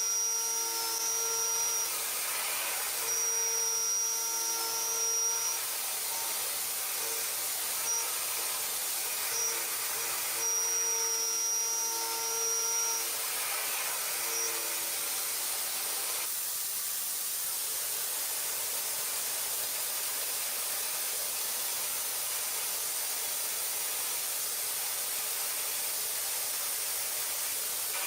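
CNC machine cutting metal: a pitched machining whine comes and goes in several spells of a second or two, over a steady hiss. About halfway through the whine stops and only the hiss continues.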